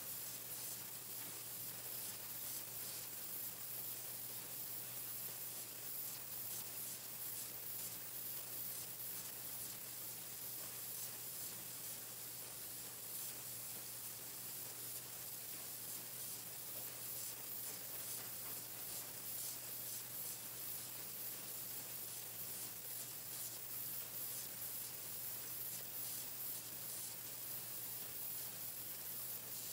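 Pencil-painting machine running: a steady hiss with a low, even hum underneath.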